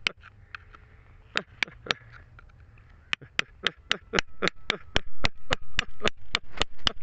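A pointed steel chisel chipping into crumbly sandy rock, making sharp taps. A few taps are scattered through the first half, then a steady run of about four a second starts around the middle.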